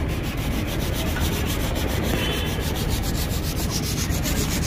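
Sanding of a car bumper: a steady scraping with a fast, even pulse.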